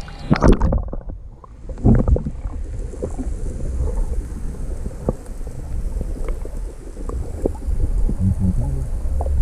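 Water splashing around the camera at the surface for about a second, then the muffled low rumble and scattered faint clicks of seawater heard from a camera held underwater.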